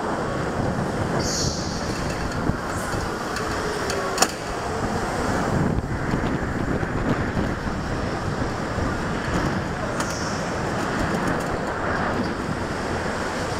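Indoor go-kart running at speed through corners, heard from the kart's onboard camera: a steady dense drive-and-tyre noise with wind on the microphone, and one sharp knock about four seconds in.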